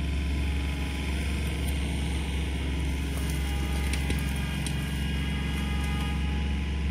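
Tractor engine running steadily, a low even hum, as it pulls a large tyre up the bank out of the stream.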